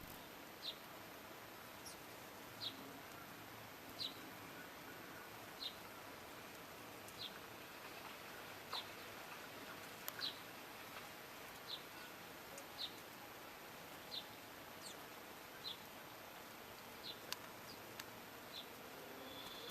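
A garden bird calling: one short high chirp about every second and a half, over a faint steady hiss.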